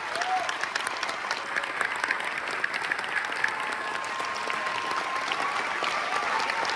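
Theater audience applauding steadily: a dense, even patter of many hands clapping.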